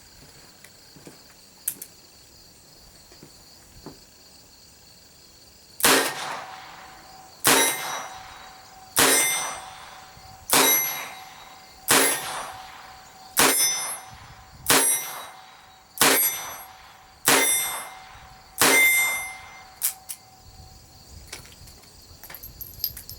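Ruger GP100 .22 LR revolver fired ten times in steady succession, about one and a half seconds apart, emptying its ten-shot cylinder; each shot is followed by about a second of ringing. Crickets chirp steadily underneath.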